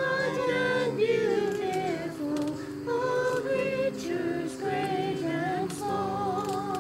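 Congregation singing a hymn together, with women's voices most prominent and long held notes.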